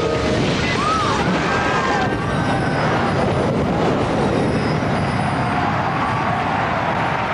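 Cartoon explosion sound effect: a sudden blast that runs on as a dense, steady rushing rumble, with faint wavering tones above it.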